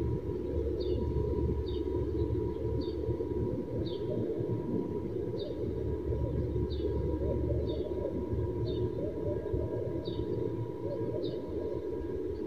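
Steady low murmur of a large outdoor crowd of worshippers waiting for Eid prayer, with short high bird chirps that fall in pitch, roughly one a second.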